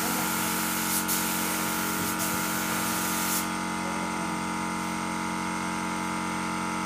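Compressed-air spray gun hissing as it sprays PU polish onto a wooden window frame, then cutting off about three and a half seconds in. A steady machine hum runs underneath.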